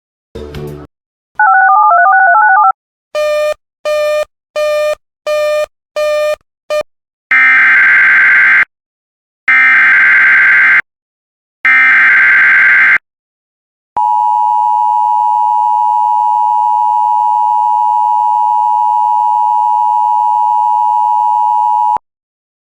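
Electronic warbling tones and six quick evenly spaced beeps. Then, about seven seconds in, three harsh screeching bursts of Emergency Alert System SAME header data. From about fourteen seconds in comes the steady two-tone EAS attention signal, held for about eight seconds and cut off sharply; it signals that a warning message is about to be read.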